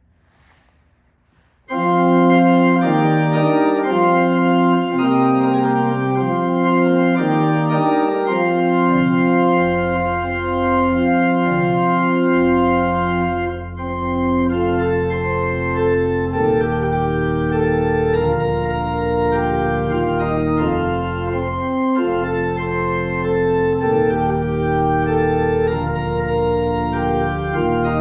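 Organ playing slow, sustained chords, starting sharply after a brief hush; deep bass pedal notes join about a third of the way in.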